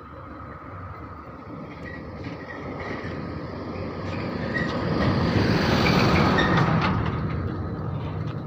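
Heavy tipper truck's diesel engine and tyres drawing nearer and passing, growing steadily louder to a peak about six seconds in, then easing off slightly.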